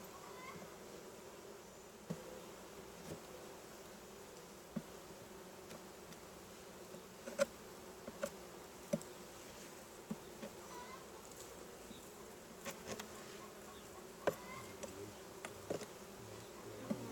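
Honeybees buzzing steadily around an opened hive, a continuous low hum, with scattered sharp clicks and knocks.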